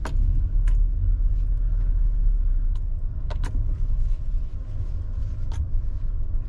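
Nissan Cube moving slowly, heard from inside the cabin: a steady low rumble of engine and tyres, with a few scattered clicks and rattles.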